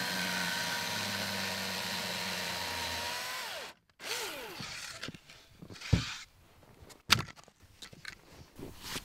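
A small engine running steadily, then winding down in pitch and stopping a little over three seconds in. A few sharp knocks and thumps follow.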